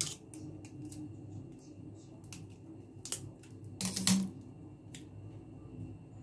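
Hard black shell of a water caltrop (ling kok) clicking and cracking as fingers pick and break at it: scattered sharp clicks, with a louder crackling crunch about four seconds in.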